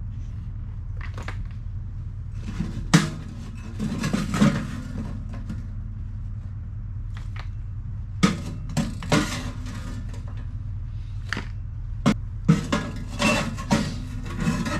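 Metal clanks, knocks and scrapes from a small camp wood stove being worked on by hand, in short bursts with pauses between.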